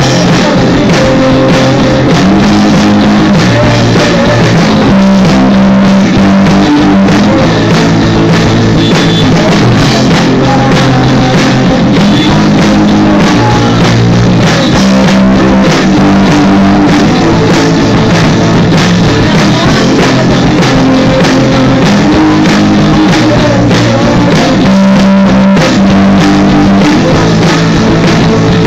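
Amateur rock band playing live in a small room: electric guitar and drums with a vocalist singing into a microphone. Very loud and steady throughout.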